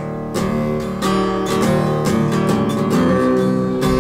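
Acoustic guitar strumming chords in a steady rhythm, the chords ringing between strokes.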